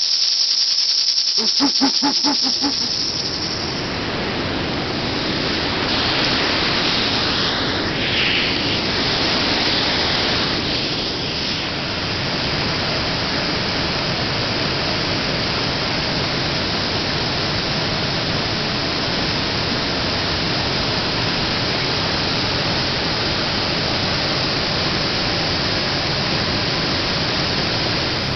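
Water pouring over a weir and churning in the pool below: a steady rushing noise that takes over a few seconds in, after a short high hiss.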